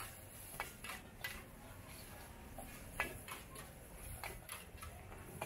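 Steel ladle and spatula clinking and scraping against a wok while vegetables are stir-fried, in irregular separate knocks.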